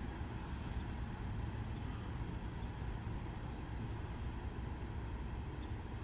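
Steady low rumble of distant vehicles, with no distinct events.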